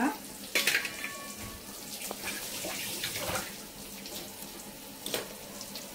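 Kitchen handling sounds at a steel mixer-grinder jar holding freshly cracked eggs: several light clicks and knocks, over a soft watery hiss that swells briefly in the middle.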